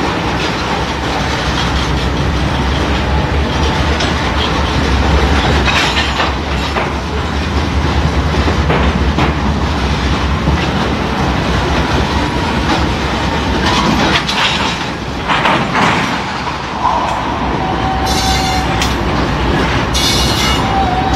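Freight train rolling past at a steady pace: hopper cars and a boxcar clattering over the rail joints with some wheel squeal. Mid-train diesel locomotives come by in the second half, with a steady whine from about three-quarters of the way in.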